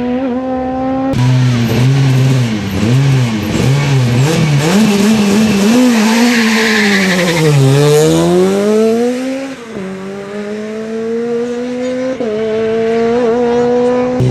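Rally car engine at a stage start: revs held steady, then blipped rapidly up and down with a hissing wash of tyre and gravel noise, dipping low and then climbing hard as it pulls away, before steady high revs return.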